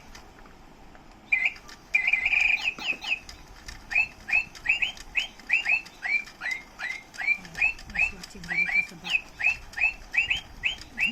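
Plastic toy bird chirping electronically: a brief call at the start, then after a short pause a long, even run of short hooked chirps, about two to three a second, with a louder warble a couple of seconds in.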